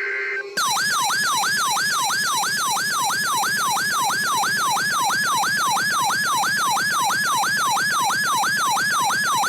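Weather radio alert siren: an electronic tone sweeping down and back up about three times a second, starting just over half a second in after a short steady tone. It sounds ahead of an incoming warning broadcast, here a tornado warning.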